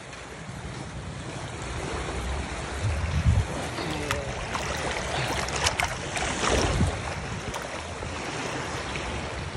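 Small sea waves lapping over shallow sand at the water's edge, with wind gusting on the microphone a few times.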